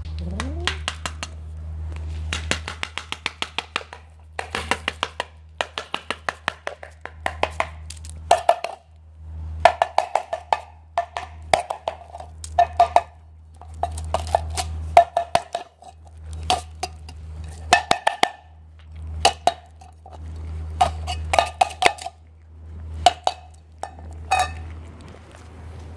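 Stray cat eating wet food noisily: bursts of rapid, wet clicking chews and smacks, mixed with a strange beast-like noise made while eating.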